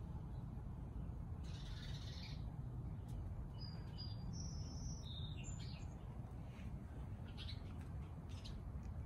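Birds calling, with a run of high chirps in the middle, over a low steady background rumble.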